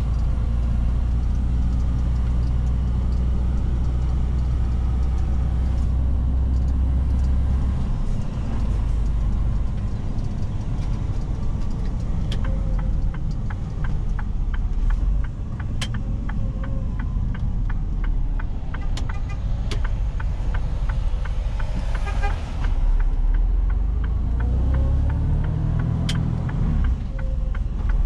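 Mercedes-Benz Arocs truck's straight-six diesel engine running under load, heard from the cab, its low note shifting several times as it pulls. Through the middle comes a fast, even ticking, and near the end the engine revs climb.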